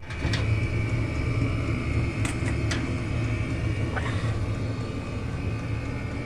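Chinese diesel air heater running: a steady low rumble with a thin, steady high whine over it. A few light clicks sound at intervals.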